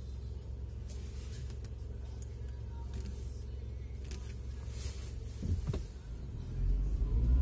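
A car on the move, its low engine and road rumble steady, with a few faint clicks. The rumble grows louder about six and a half seconds in, as the car picks up speed.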